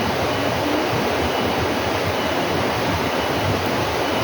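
Steady rush of running water, with a faint short high note recurring about once a second.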